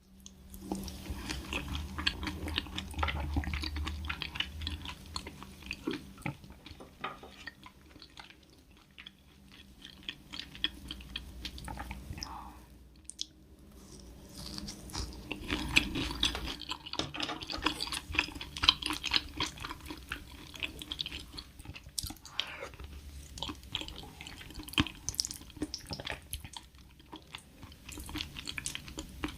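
A person eating soft seafood: wet chewing and mouth clicks in dense runs, with quieter pauses between.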